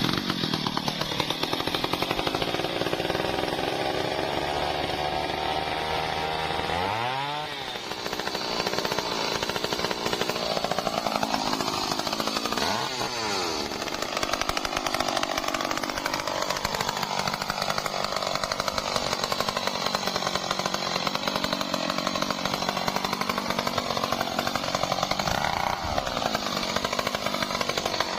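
Stihl MS 382 two-stroke chainsaw running at high revs while cutting trembesi wood. The engine note wavers throughout and twice sags and climbs back, about 7 and 13 seconds in.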